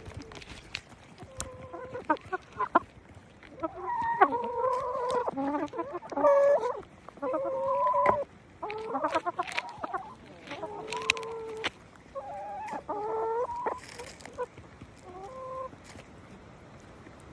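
Hens clucking and calling, a run of pitched calls in bursts that starts about two seconds in and dies away near the end.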